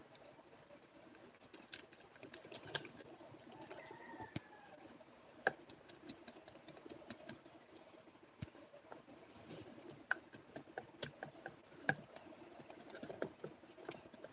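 Red silicone whisk stirring pancake batter in a white bowl: faint, irregular clicks and taps of the whisk against the bowl with a soft wet stirring sound.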